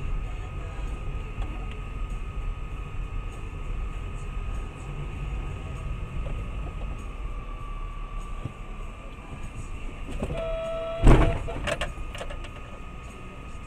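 Steady road and engine rumble heard from inside a moving vehicle. About ten seconds in a car horn starts to blare, and within a second comes a loud crash impact, the loudest sound, followed by a smaller knock as the horn stops.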